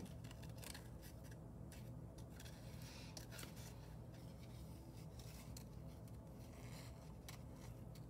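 Scissors cutting paper, a run of faint, irregular snips as a leaf shape is cut out.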